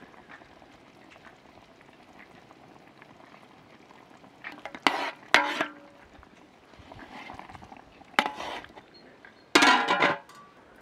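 Metal ladle clanking against a large metal cooking pot: a few sharp, ringing knocks, the last and longest near the end as the metal lid is set on the pot. Under them, a faint steady simmer of broth.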